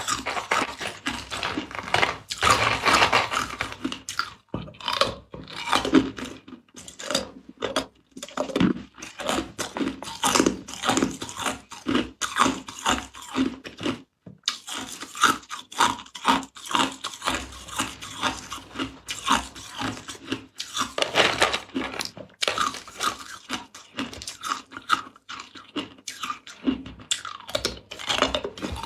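Ice cubes being crunched and chewed, a dense run of crisp, hard crunches with a short pause about fourteen seconds in.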